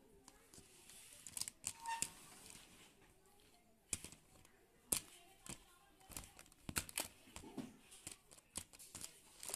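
Hard plastic toy figures handled and knocked against one another and the tabletop: a scattered string of light clicks and clacks with some rustling.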